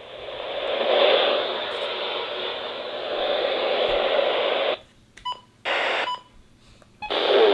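Radio receiver hissing static on a lost or very weak signal. The hiss cuts out abruptly about five seconds in, a couple of short bursts of static follow, and it comes back loud near the end.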